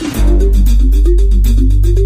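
Background electronic music: a held deep bass note comes in just after the start under a short repeating melody, with little drumming.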